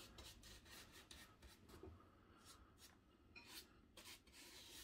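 Faint, irregular strokes of a flat bristle paintbrush spreading thin matte medium glue along the edge of a scenery base, with a short pause in the middle.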